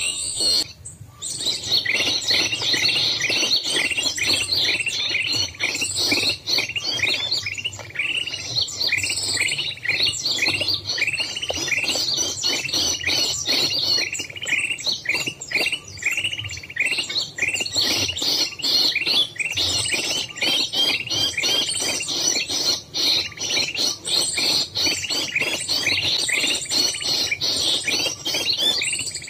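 Small birds chirping without a break: a dense run of short, sharp, repeated chirps, several a second.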